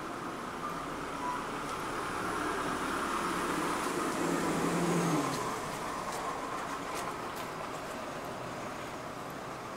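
A motor vehicle's engine passing close by on the street: its hum builds to a peak about five seconds in, then falls away. A few faint reversing-alarm beeps sound near the start.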